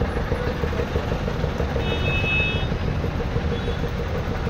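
Steady low rumble of motor-vehicle engines, with a short high-pitched tone about two seconds in.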